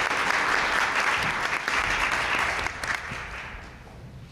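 Audience applauding, then dying away about three seconds in.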